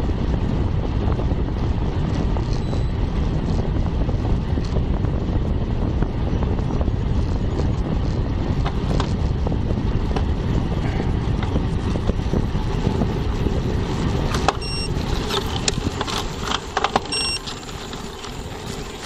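Wind rushing over a bike-mounted camera's microphone as the bicycle descends at speed. About three-quarters of the way through the rush eases as the bike slows into a steep climb, and a series of sharp mechanical clicks and ticks from the bicycle is heard.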